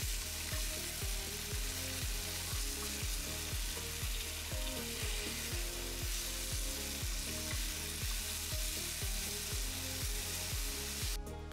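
Sliced bell peppers, mushrooms and onion sizzling in a hot frying pan as they are stirred with a wooden spoon, over background music with a steady low beat. The sizzling cuts out near the end, leaving the music.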